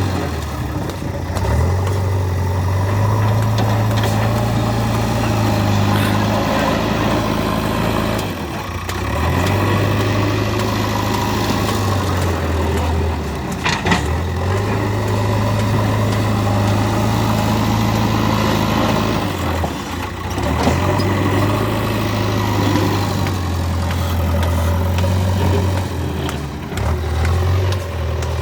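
JCB 3DX Eco Xcellence backhoe loader's diesel engine running at work, its low note dipping and picking up again every several seconds as the load changes. One sharp knock about halfway through.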